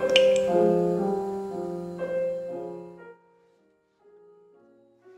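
Solo piano music, its notes ringing out and fading, then dropping away sharply about three seconds in, with a few faint notes after.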